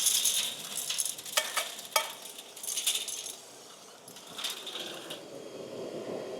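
Metal drill chips rattling and clinking as they are sucked up through an industrial vacuum hose, in irregular bursts of clatter with sharp clicks that thin out toward the end.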